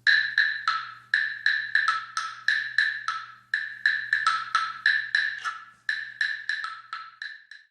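Hollow wooden knocks in a quick rhythm, about three or four a second, switching between a higher and a lower note, like a wood block being struck. A faint low hum sits underneath and fades out near the end.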